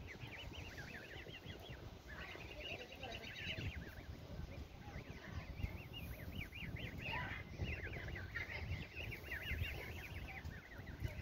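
Canada goose goslings peeping, many high, short calls overlapping in a continuous chatter, with a low rumble underneath.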